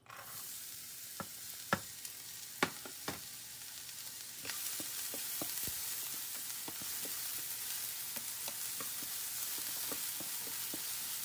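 Diced red onion sizzling in hot oil in a nonstick frying pan as it is stirred with a wooden spatula. A few sharp ticks in the first three seconds, then the sizzle grows louder about four and a half seconds in and runs steadily with many small ticks.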